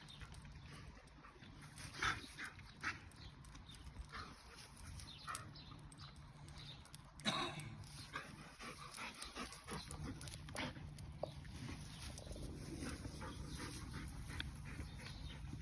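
A lurcher dog making a series of short sounds, the loudest about seven seconds in, over a steady low hum.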